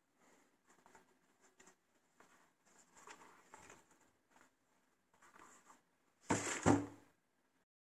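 Faint rustling and light taps of a sneaker being handled over tissue paper in a cardboard shoebox, then, a little over six seconds in, a louder rustle and bump as the shoe is set down into the box.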